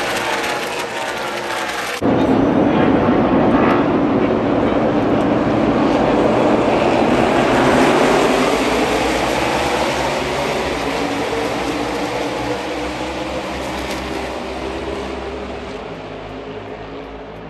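NASCAR stock cars' V8 engines at racing speed as a pack of cars passes, the engine note rising and falling. It jumps much louder about two seconds in and fades gradually near the end.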